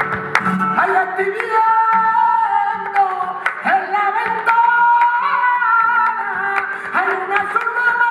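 Male flamenco singer singing bulerías in long, sliding melismatic phrases, over rhythmic palmas hand-clapping and flamenco guitar.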